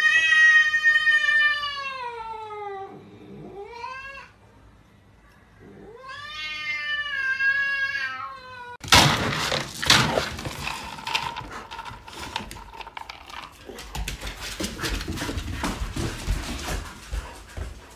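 Cat yowling: long, drawn-out cries that fall in pitch, a short rising cry, then another long cry. About nine seconds in the sound changes abruptly to noisy clatter and scuffling with many sharp knocks.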